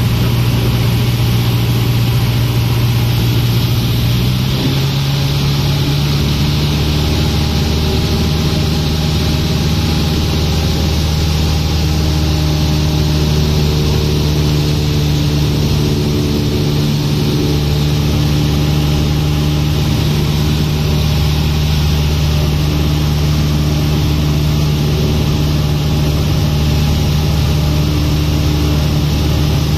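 Cessna 150's Continental O-200 four-cylinder engine and propeller droning steadily, heard from inside the cockpit. The pitch of the drone shifts about four seconds in, then holds steady.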